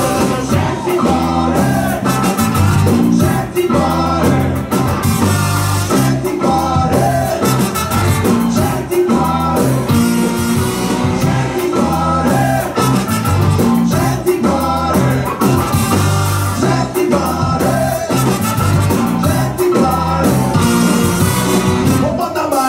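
Ska band playing live: trumpet and saxophone over electric guitar, keyboard, bass and drums, in a steady rhythm.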